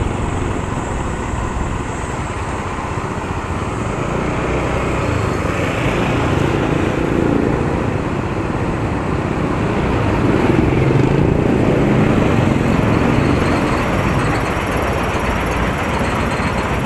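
Motorcycle engine running at low speed, picked up with road noise by the bike-mounted camera's microphone.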